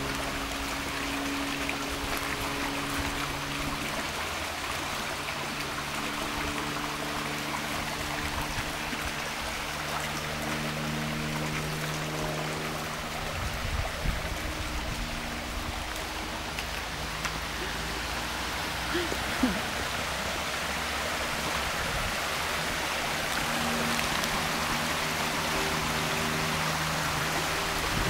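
A small rocky stream rushing and gurgling over stones, a steady wash of water, with a faint low hum underneath.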